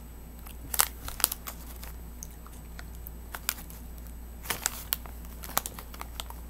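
Scattered crinkles and sharp crackles of a plastic cotton candy package being handled while cotton candy is pulled off by hand, loudest about a second in, over a steady low hum.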